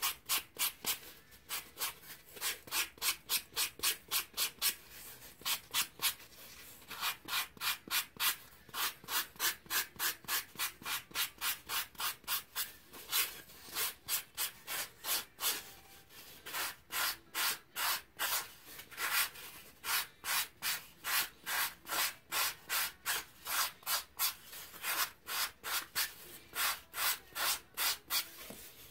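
Hand-held sandpaper rubbed back and forth over a pink leg core for a ball-jointed doll, a fast rhythm of hissing strokes at about two to three a second, with two short breaks.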